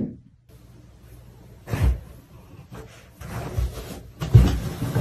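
Three dull knocks with rubbing and handling noise between them.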